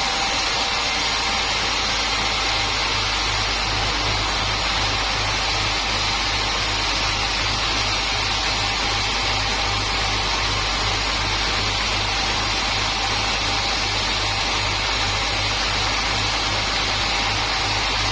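Sawmill machinery running steadily with a continuous hissing noise, joined a couple of seconds in by a low regular pulse about twice a second.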